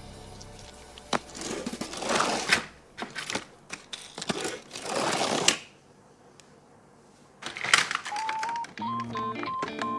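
Clicking and rattling, with two longer noisy rustles and a short quiet gap, then a simple tune of held notes starting near the end.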